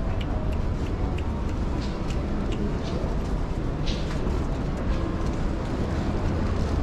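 Steady background noise of a large, busy exhibition hall: a low rumble with scattered faint clicks and knocks.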